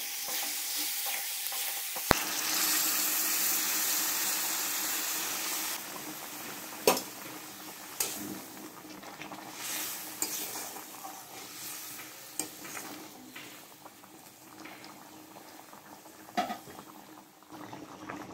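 Chicken curry with potatoes sizzling in oil in a pan as it is stirred, with a few sharp knocks of the utensil against the pan. The sizzling is loudest in the first six seconds and then dies down.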